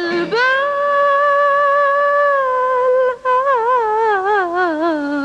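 A woman's solo singing voice in an Arabic song holds one long, steady note for about three seconds. After a brief break she sings a wavering, ornamented run that falls in pitch.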